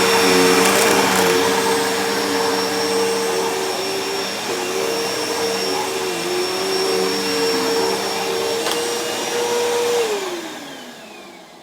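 Bissell PowerForce bagless upright vacuum cleaner running steadily while vacuuming shredded paper, its pitch dipping briefly a few times. About ten seconds in it is switched off and the motor whine falls as it spins down.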